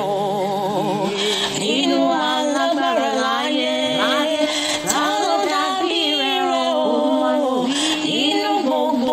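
A woman singing a Yoruba gospel praise song, her voice multi-tracked into several harmony parts, with wavering vibrato on held notes over a steady sustained low note.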